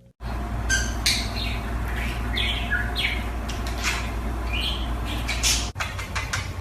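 A bird chirping in a series of short calls that slide downward in pitch, about two a second, over a steady low hum. The calls stop briefly near the end, then go on.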